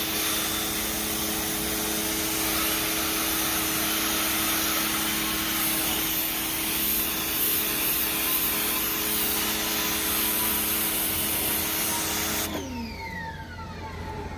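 Westinghouse electric pressure washer spraying in fan mode: a steady motor hum under the hiss of the spray. About twelve seconds in the spray stops and the motor winds down with a falling whine.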